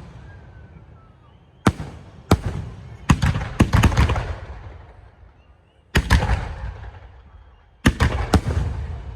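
Aerial sky-shot fireworks bursting overhead: sharp bangs, each trailing off in a rumble. A quick run of several bangs comes a little past the middle, and another group near the end.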